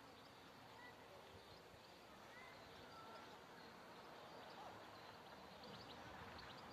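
Near silence: faint outdoor background with a few brief, faint high chirps and ticks.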